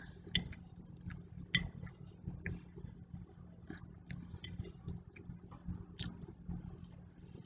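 A metal fork clinking and scraping against a dinner plate while eating: about half a dozen sharp clinks spread out, the loudest about a second and a half in, over a faint steady hum.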